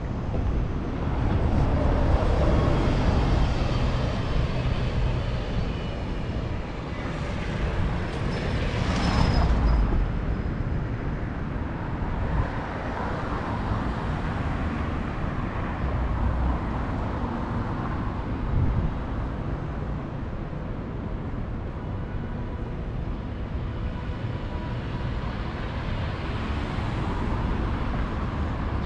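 Street traffic: cars going by on the road over a steady low rumble. The loudest passes about two to four seconds in and again about nine seconds in, with a brief rush swelling and fading.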